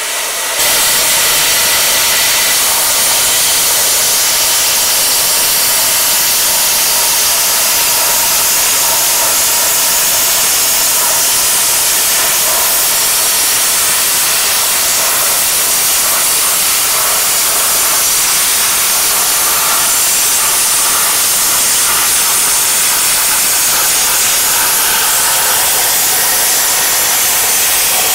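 P80 plasma cutting torch, run at 40 amps with a 1.1 mm tip, cutting steel sheet. It makes a loud, steady hiss of air and arc that carries on without a break.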